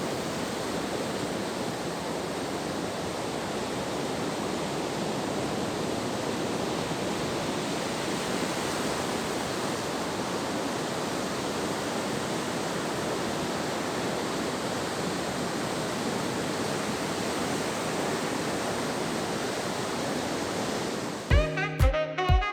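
Steady, even rushing of ocean surf and wind on the beach. Near the end it gives way to music with a strong beat.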